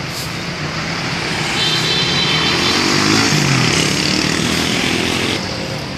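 A bus driving past close by, its engine and road noise swelling to a peak about three seconds in and then fading, with a faint shift in pitch as it goes by.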